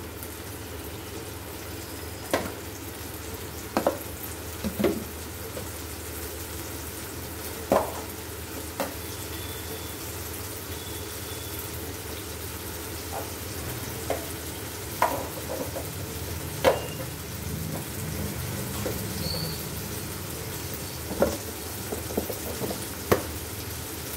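Tomatoes and green chillies frying in oil in a pan over a gas flame, a steady low sizzle with occasional sharp clicks.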